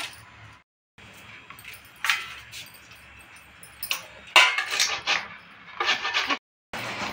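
Peeled bottle gourd being grated on a flat stainless-steel hand grater held over a pan: runs of short, rough rasping strokes, with metal clinks as the grater is picked up and handled. The sound cuts out briefly twice.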